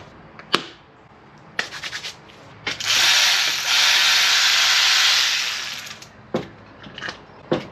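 Hand socket ratchet clicking rapidly as bolts are backed out of a CD4E automatic transmission's shift solenoid pack or valve body, a dense rasp lasting about three seconds, with a few separate clicks and knocks of tools before and after.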